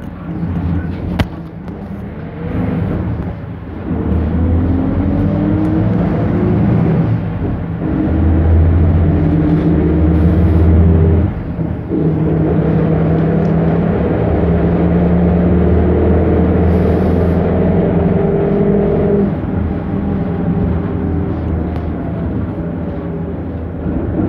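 Engine of a 1998 Autosan H6 minibus, a Perkins Phaser 110Ti turbo-diesel, heard from inside the bus as it pulls away. The note climbs in stages, dips at a gear change about 11 seconds in, then runs steadily until it falls away near the end as the driver eases off. There is a single sharp click about a second in.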